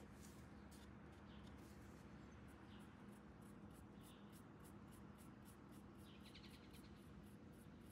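Near silence: faint room tone with a steady low hum and a run of faint, evenly spaced high ticks, with a brief faint chirp about six seconds in.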